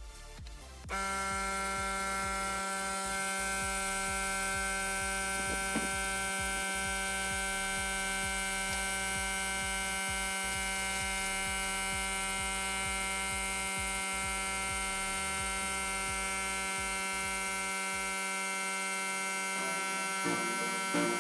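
A steady electrical hum, starting abruptly about a second in and holding at one unchanging pitch.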